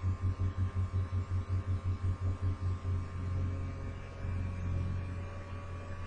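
A low electrical-sounding hum, pulsing about six times a second for the first half, then steady.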